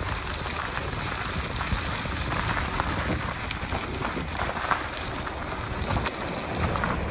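Freight train rolling past: a steady low rumble with crackling clatter of wheels on the rails, and wind on the microphone.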